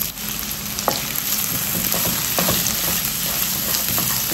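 Sliced onions sizzling in hot oil in a kadai, with a wooden spatula stirring them and scraping the pan now and then.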